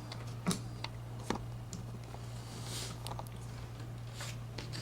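A few light clicks and handling rustles as a compression crimper and an RG6 coax cable's F connector are handled and set up for crimping, over a steady low hum.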